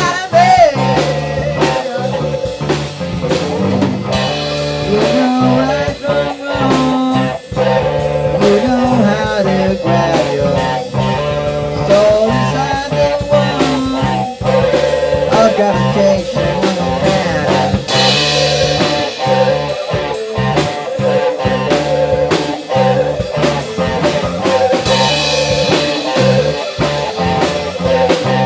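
Blues-rock band jam: a lead guitar plays held notes with vibrato and string bends over bass and drums. Cymbal crashes come twice in the second half.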